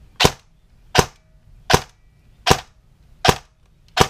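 Airsoft electric AK rifle (AEG) firing single shots on semi-auto: six sharp shots, evenly spaced about three-quarters of a second apart.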